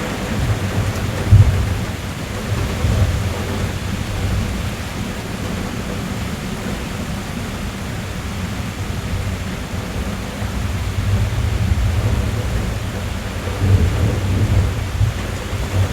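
Rain drumming steadily on a car's roof and windows, heard from inside the cabin, with low rolls of thunder swelling over it; the loudest clap comes about a second in and more rumbles build near the end.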